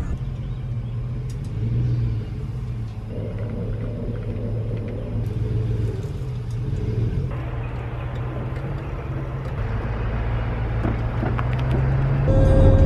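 SUV engine running steadily with a low hum, its tone shifting abruptly a few times.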